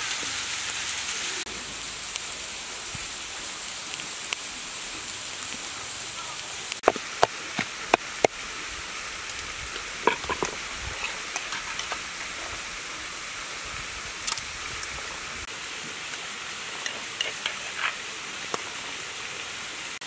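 Charcoal grill sizzling under a whole marinated duck for about the first second and a half, over a steady hiss of rushing waterfall water. Scattered sharp knocks and clicks of a spoon and utensils against a clay mortar and cutting board follow, with a quick run of four loud knocks near the middle.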